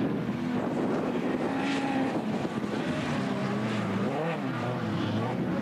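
Autocross car engines revving hard, with the pitch rising and falling repeatedly as the cars accelerate and lift through a dirt-track corner. More than one engine is heard at once.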